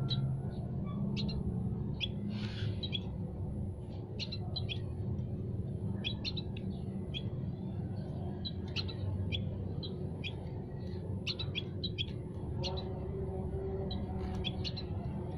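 Several small caged songbirds in a mini aviary chirping, with short sharp calls coming irregularly throughout, over a steady low hum.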